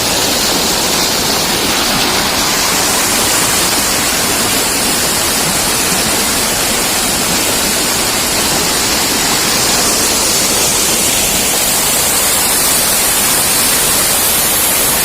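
Loud, steady rush of a waterfall and its water pouring over the rocks close by, an unbroken roar with no change in level.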